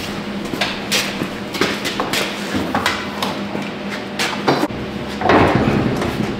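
Steel truck cab door being handled and fitted onto its hinges: scattered metal knocks and clanks, with a louder scrape about five seconds in.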